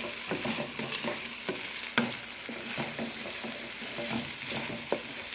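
Green beans and chicken sizzling as they are stir-fried in a pan on high-medium heat, with irregular clicks and scrapes of the stirring utensil against the pan and a sharper knock about two seconds in.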